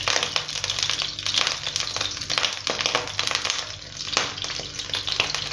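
Olive oil heating in a nonstick frying pan, crackling and sizzling with dense fine pops. A little after four seconds in, more oil is poured in from a ladle and the crackle picks up again.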